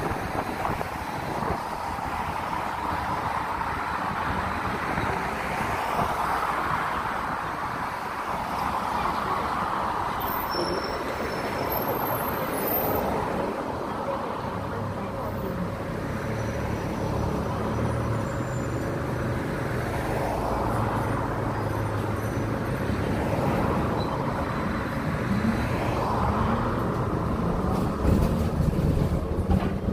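City bus in motion, heard from on board: a continuous rumble of engine and road noise that swells and eases with the bus's speed, with a steady low engine hum in the second half.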